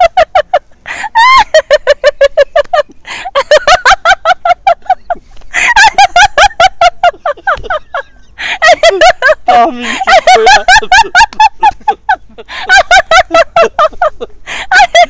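A woman laughing hard, a fast string of high ha-ha pulses, in several long bouts broken by brief catches of breath.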